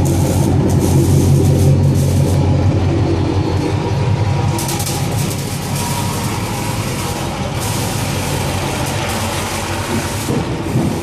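Chrysler 300 SRT8's HEMI V8 idling steadily through its exhaust, a deep, even note heard from beneath the car close to the pipes.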